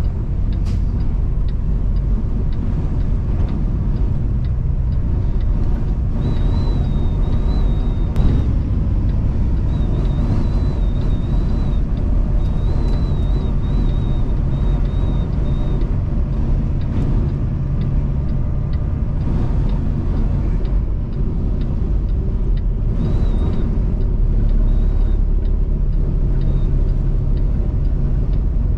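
Steady low rumble of a semi truck driving on the highway in a gale, wind buffeting the cab and trailer. A faint high whistle comes and goes.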